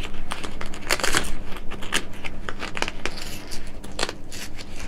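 Crye Precision JPC 2.0 plate carrier's shoulder pad being handled: fabric rustling and the crackle of hook-and-loop panels pulled apart, with scattered clicks.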